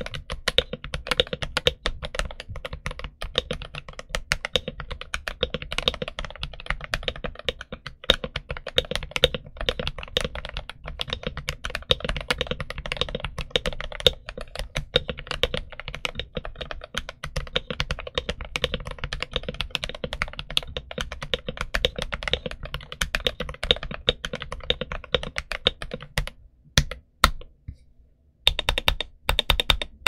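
Continuous fast typing on an FL-Esports CMK98 mechanical keyboard fitted with linear Kailh Box Red switches and SA-profile double-shot PBT keycaps: a dense stream of keystrokes. A few seconds before the end the typing thins to a handful of single key presses, then picks up again.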